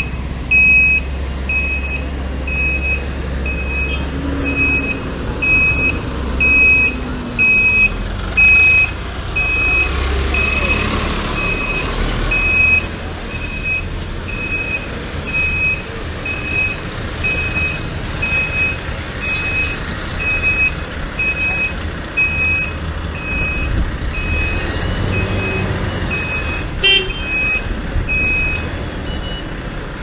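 A dump truck's reversing alarm beeping at an even, rapid pace over the low rumble of running engines as the loaded truck backs up. A brief sharp sound comes near the end, and the beeping stops shortly after.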